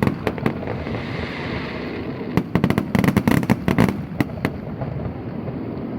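Fireworks exploding in rapid volleys: a quick run of sharp bangs at the start, then a longer, denser string of bangs from about two and a half to four and a half seconds in.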